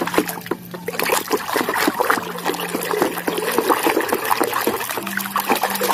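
Water trickling and splashing over a muddy toy guitar as it is rinsed clean, with a low hum that comes and goes.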